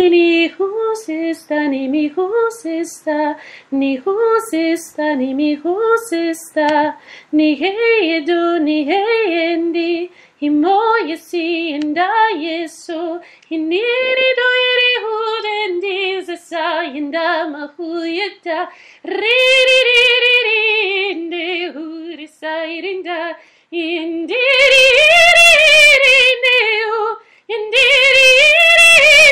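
A woman singing solo and unaccompanied, a flowing melody of held and gliding notes in a middle range. It swells louder and higher in the last few seconds.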